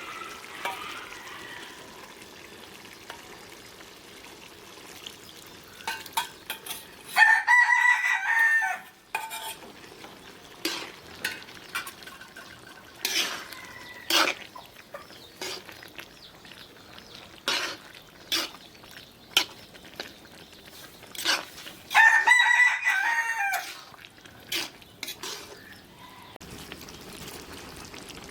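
A rooster crows twice, about fifteen seconds apart, each crow lasting about two seconds. Between and under the crows, a utensil clicks and scrapes while stirring in a pan, over faint frying.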